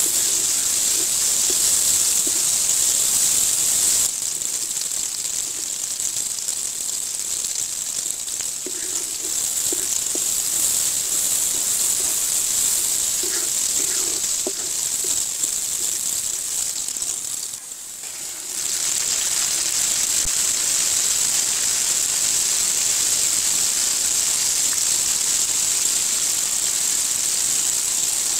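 Sliced onions sizzling in hot oil in a wok, a steady hiss that eases a little about four seconds in and dips briefly about two-thirds of the way through.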